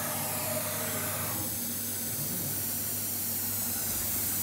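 Steady hiss of a noisy CNC workshop with a low hum underneath, and for about the first second and a half a faint whine from the CNC router's drives as it moves to fetch the next tool from its automatic tool changer.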